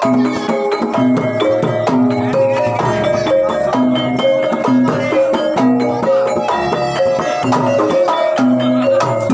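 Javanese gamelan music: metallophones ringing out a repeating melody over hand-drum beats and low recurring gong-like notes, in a steady rhythm.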